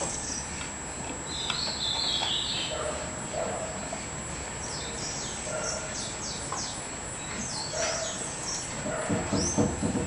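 Short animal calls repeating every second or two, with high bird chirps over them; about nine seconds in, a faster run of rhythmic calls begins.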